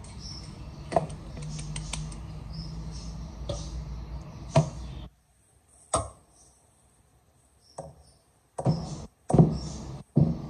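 Flour sifted through a metal drum sieve, a hand tapping its rim: scattered soft knocks over a steady low hum. About halfway through the hum cuts out suddenly, leaving a few separate short thumps.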